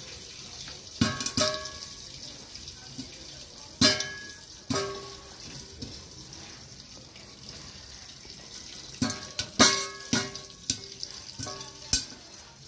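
Popcorn kernels popping in a covered aluminium pot: about a dozen scattered sharp pops against the metal lid, each followed by a brief metallic ring, over a steady hiss. The pops come in two clusters with a quiet stretch in the middle, the sparse last pops of a batch that is nearly done.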